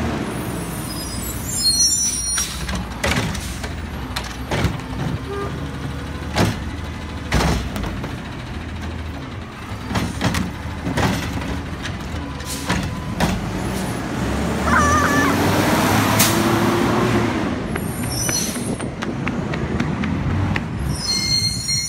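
Front-loading garbage truck with a Curotto-Can arm picking up a wheeled trash cart: the diesel engine runs steadily while the arm's grip and the cart clank and bang several times. Later the engine revs up and back down as it drives the hydraulics to lift and dump the cart.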